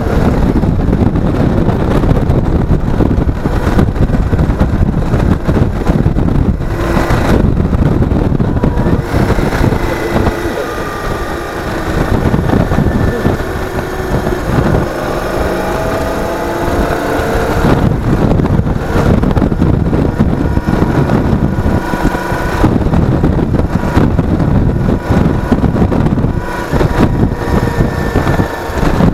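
Loud wind noise on a vehicle-mounted action camera's microphone. Under it, a vehicle engine runs, its pitch rising and falling several times as the vehicle speeds up and slows.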